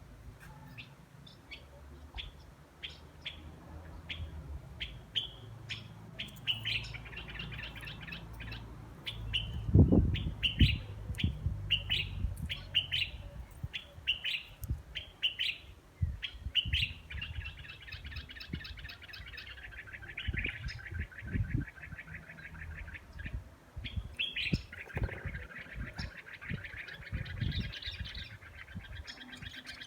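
Bird chirping in short repeated notes, breaking into long rapid trills about 17 seconds in and again about 24 seconds in. Several dull knocks sound underneath, the loudest about ten seconds in.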